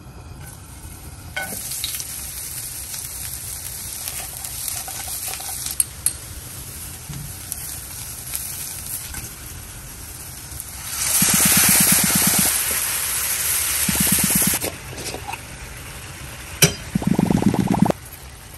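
Onions and red bell pepper strips sizzling in hot oil in a nonstick frying pan. About eleven seconds in, the sizzle turns much louder for about three seconds. Near the end, a spatula stirs the tomato sauce in quick scraping strokes.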